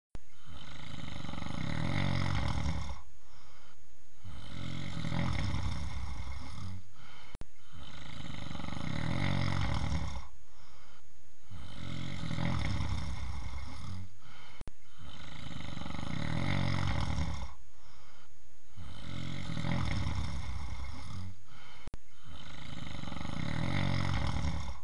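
A person snoring, with a deep, rasping snore on each breath, about one every three and a half seconds, repeated steadily. There are brief cut-outs every seven seconds or so.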